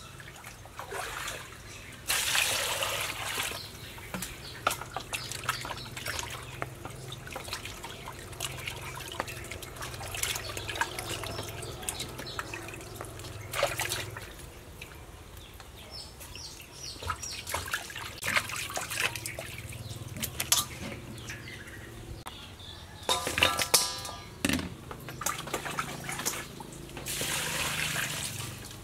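Hands washing raw chicken breasts in a stainless steel bowl of water: splashing and sloshing with many small clicks. Near the end, water is poured from a plastic bowl into the steel bowl.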